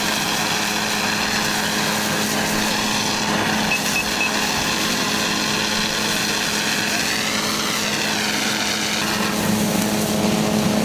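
Engine running steadily at a constant speed, a fixed-pitch hum under a noisy haze. Its higher whine dips and then rises in pitch once, about seven to nine seconds in.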